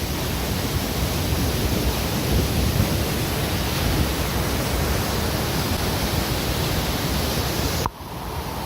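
Rushing water of a rain-swollen waterfall, a steady heavy hiss. It drops suddenly to a quieter level just before the end.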